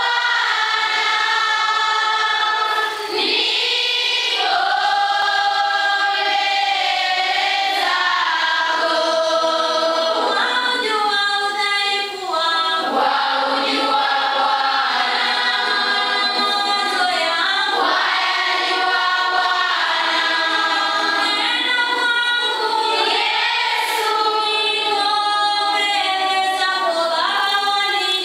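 A large group of girls singing together as a choir, a prayer song in long held notes with short breaks between phrases.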